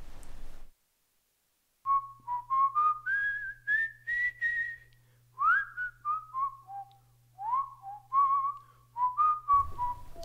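A tune whistled by one person, starting about two seconds in: a run of separate notes, some reached by a quick upward slide, rising in pitch and then falling back.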